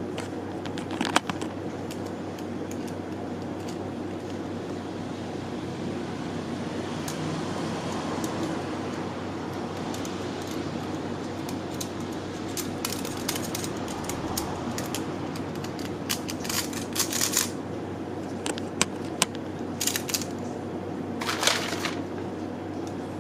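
Hand work on a tinplate model kit: scattered small clicks, taps and brief scrapes of metal parts and hand tools, in a few clusters, over a steady background hum.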